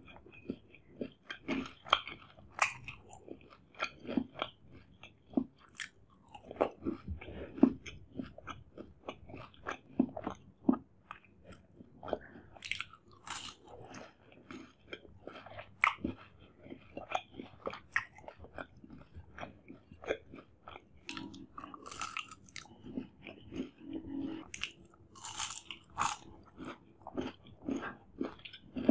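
Close-miked chewing and biting of shahi jilapi, a syrup-soaked fried sweet: irregular crunches and wet mouth clicks.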